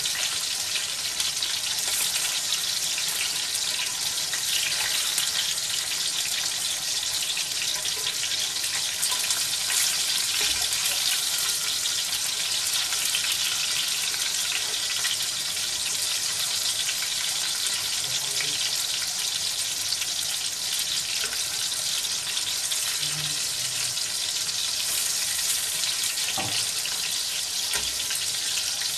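Chicken gola kababs shallow-frying in hot oil in a pan: a steady sizzle with fine crackling.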